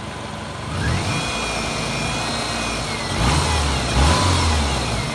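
Subaru EJ25 SOHC flat-four engine running after its rebuild, its speed rising about a second in and then blipped up a few times in the second half. There is no belt squeak: the squeaking belt has been taken off.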